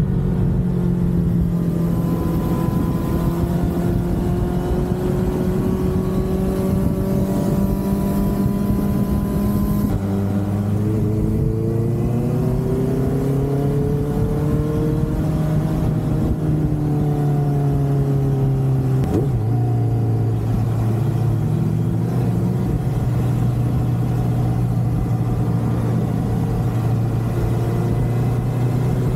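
The inline-four engine of a 2019 Honda CBR650R running under way through a Mivv GP Pro slip-on exhaust. It holds a steady pitch, drops in pitch about a third of the way in, rises and falls with the throttle, and gives a brief blip about two-thirds through before settling.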